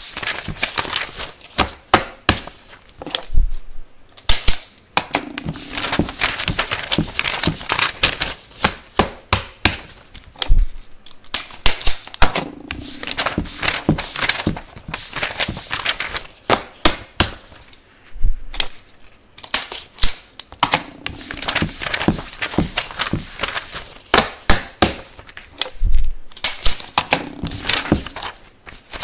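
Desk stapler worked again and again, sharp clacks and crunches of staples driven through paper, with a dull thump now and then. The same run of stapling repeats about every seven and a half seconds.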